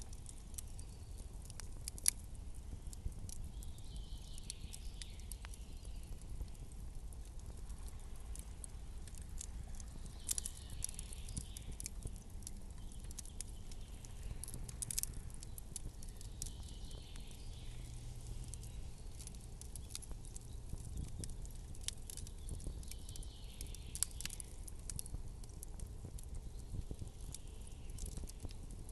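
Campfire crackling: irregular sharp pops and snaps from burning wood over a low steady rumble, with the loudest pops about two seconds in and near the end. A soft hiss swells and fades every five or six seconds.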